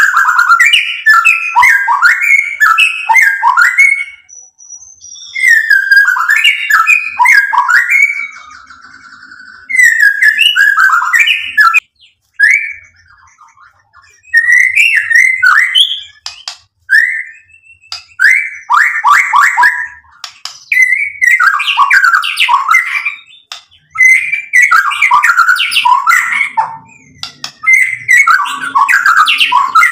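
White-rumped shama (murai batu) singing: bouts of rapid, varied whistled phrases a few seconds long, broken by short pauses.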